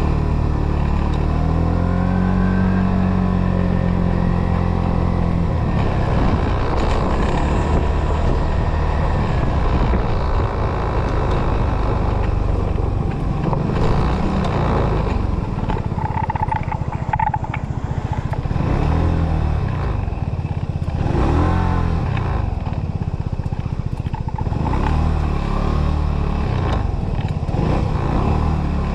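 Motorcycle engine running under way, its pitch rising and falling as the bike speeds up and slows down, over steady road and wind noise.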